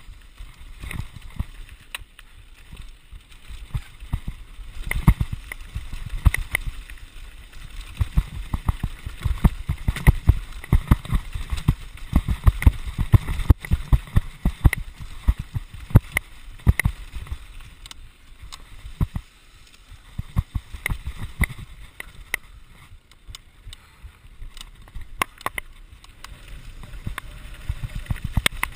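Santa Cruz Nomad mk2 full-suspension mountain bike descending a rough, rocky dirt trail, heard from a chest-mounted camera: a dense, irregular run of knocks and rattles as the bike hits rocks and bumps, over a steady low rumble. The knocking eases off briefly twice in the second half.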